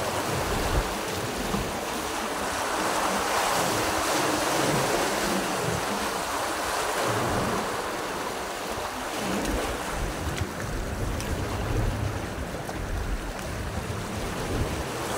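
Sea waves washing against the rocks of a breakwater, a steady surf hiss that swells and eases, with wind gusting on the microphone as a low, uneven rumble.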